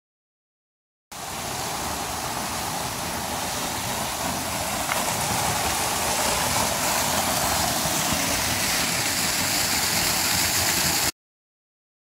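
Waterfall pouring off a rock ledge and splashing into a shallow plunge pool: a steady rush of falling water that starts about a second in, grows a little louder and cuts off suddenly near the end.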